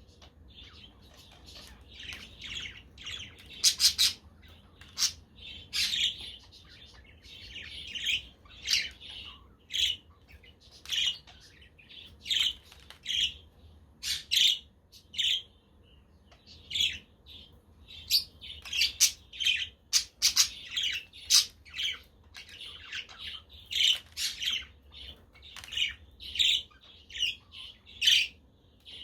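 Budgerigars chirping and chattering: a steady run of short, high calls in quick succession, with a few louder, sharper squawks among them.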